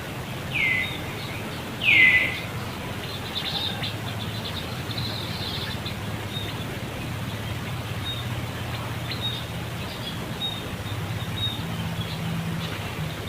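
Two short, high calls falling in pitch, the second louder, followed by faint rapid high chirping and scattered short peeps from animals outdoors.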